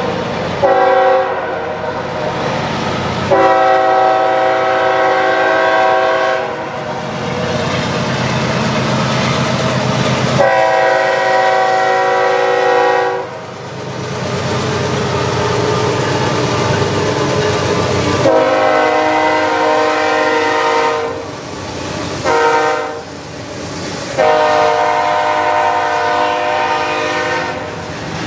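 Freight locomotive's multi-chime air horn sounding several long blasts and one short one, ending long, long, short, long: the grade-crossing signal. Between the blasts the train is heard rolling past with the clatter of its cars.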